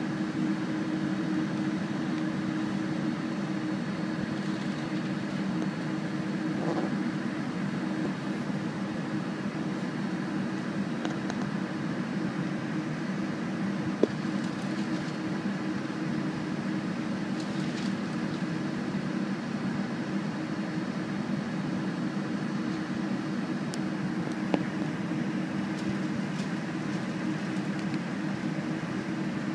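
Steady cabin noise inside a Boeing 747-400 taxiing, with its engines at idle and the air conditioning humming low. Two brief clicks come through, one about halfway and one later on.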